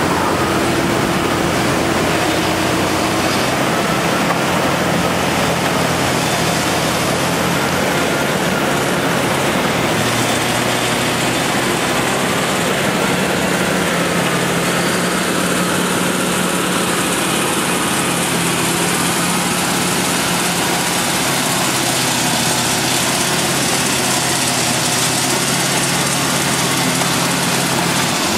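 Diesel engines of heavy earthmoving machinery, a Hitachi tracked excavator and a bulldozer, running steadily with little change in pitch.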